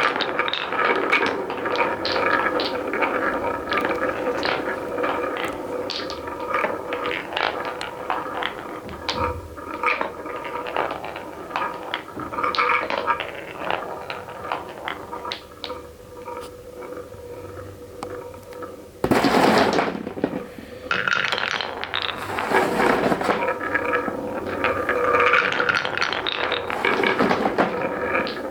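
Marbles rolling and clacking along a wooden marble-run track: a continuous patter of quick clicks and rattles, with two louder rushing bursts about two-thirds of the way through.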